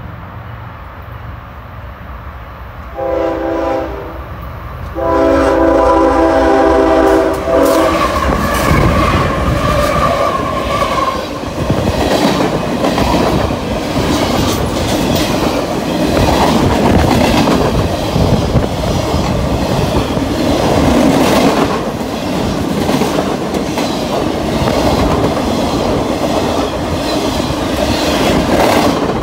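Freight train's diesel locomotive sounding its horn, a chord of several tones: a short blast about three seconds in and a longer one about five seconds in. Then the locomotive and a long string of freight cars pass close by, rumbling loudly, with the wheels clicking over the rail joints.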